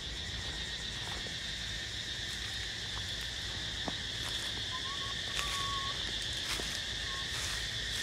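Steady, high-pitched insect chorus droning without a break, with a couple of brief faint thin whistles around the middle and a few soft ticks.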